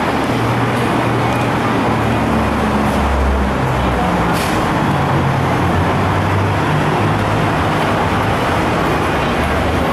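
Loud, steady traffic din from motor vehicles, with a low engine rumble that rises and falls.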